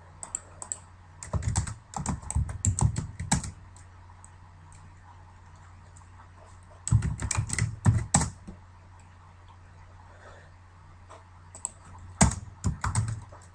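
Typing on a computer keyboard: three quick runs of keystrokes separated by pauses of a few seconds.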